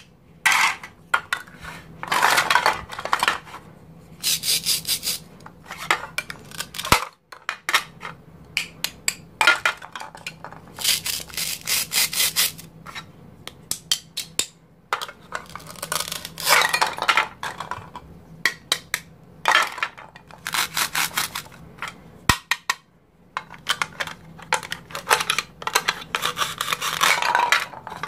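Velcro joins on plastic toy fruit tearing apart in a series of short rasping rips, with the plastic pieces clicking and knocking between them.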